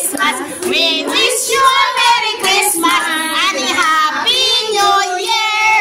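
Children singing a song together, high voices carrying the melody without a break.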